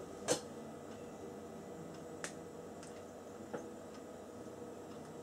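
A few small sharp clicks of a screwdriver and metal parts being handled at a motorcycle ignition stator's wiring, against quiet room tone. The first click, about a third of a second in, is the loudest.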